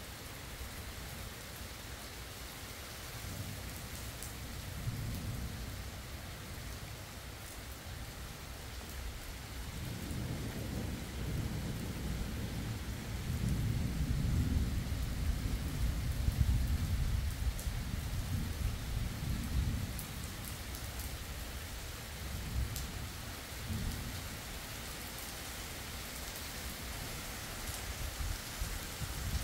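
Steady rain falling, with a long low rumble of thunder that builds about ten seconds in, is loudest near the middle and dies away, and fainter rumbles before and after it.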